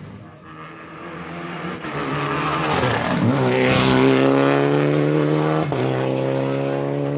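A rally car's engine approaching and passing at high revs: the pitch dips briefly about three seconds in, then climbs and holds as the car is loudest about four seconds in with a hiss over the engine, and the note shifts suddenly near six seconds in.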